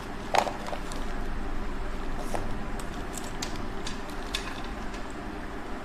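Scattered small clicks and taps of small objects being handled, the loudest about half a second in, over a steady low background noise.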